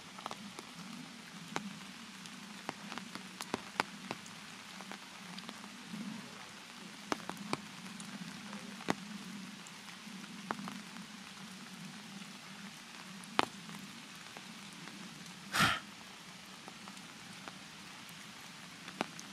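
Raindrops falling on wet leaves and ground: scattered sharp drops over a steady hiss, with a low steady hum underneath. One louder short noise comes about three-quarters of the way through.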